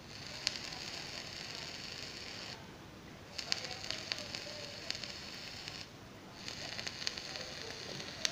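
Origen V2 Genesis atomizer's Ni80 mesh coil sizzling and crackling as it is fired at 30 watts, in three pulses of two to three seconds with short breaks between. The sound is the liquid-soaked mesh wick vaporizing e-liquid.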